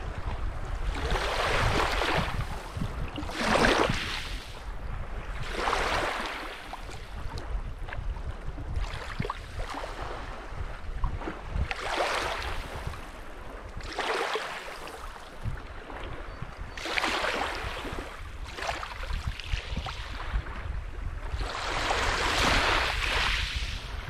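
Lake Superior waves breaking on the shore every few seconds, each one a swell of rushing, hissing water that rises and falls away, the strongest about four seconds in and near the end. A steady low rumble of wind on the microphone runs underneath.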